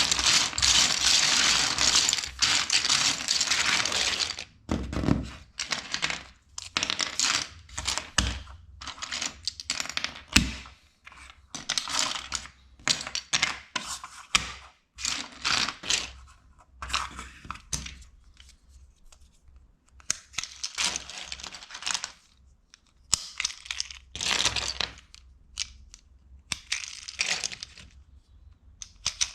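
LEGO pieces being handled: a long stretch of crinkling and rustling plastic for about four seconds, then irregular short bursts of rustling and clattering bricks with quiet gaps between.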